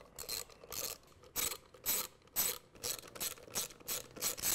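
Small hand ratchet tightening the bolts of an electric motor's encoder cover: the pawl clicks in short runs on each back-stroke, a little over two runs a second.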